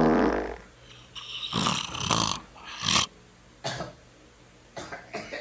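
A person snoring loudly: a long rattling snore at the start, then a string of shorter snores.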